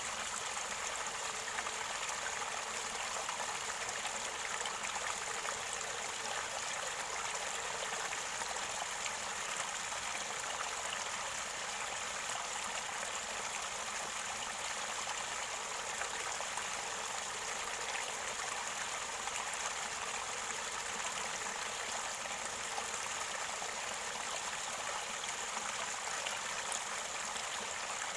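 Mountain stream water flowing and gurgling steadily over rocks, a continuous even rush with a bright, hissy top.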